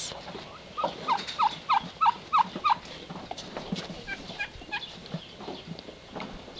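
Domestic fowl calling: a run of six short, evenly spaced calls about three a second, then a few fainter, higher chirps a little later.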